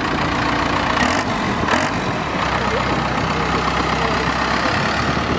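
Turbocharged Cummins diesel engine swapped into a Mazda Miata, idling steadily.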